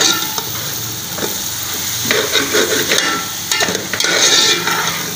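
A metal slotted spoon stirs and scrapes vegetables and egg around a metal pot while they sizzle in the hot oil. The scraping grows louder in two stretches, about two and about four seconds in.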